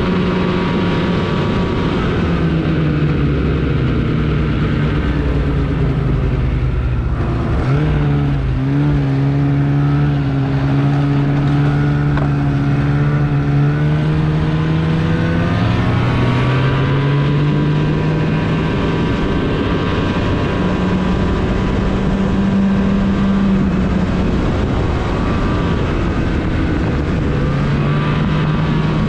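Snowmobile engine running under way, its pitch falling and climbing several times as the throttle changes, over a steady rushing noise.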